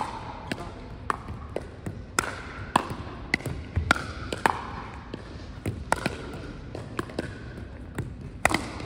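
Pickleball rally: sharp pops of paddles hitting a plastic ball, mixed with the ball bouncing on a hardwood gym floor, one or two pops a second at an uneven pace.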